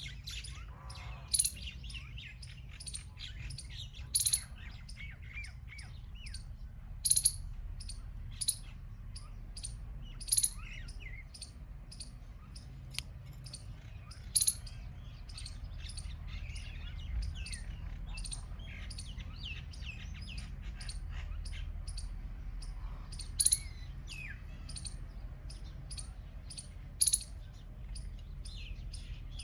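Small birds chirping: short, sharp, high chirps repeating at irregular intervals, a handful of them much louder than the rest, over a steady low rumble.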